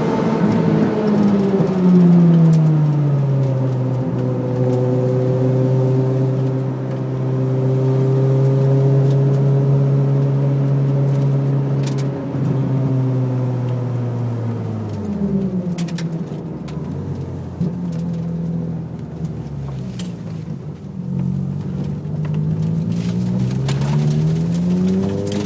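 Citroën Saxo's engine heard from inside the cabin while driven hard: the revs fall in the first few seconds, hold steady, drop sharply about fifteen seconds in, stay low for several seconds, then climb again near the end.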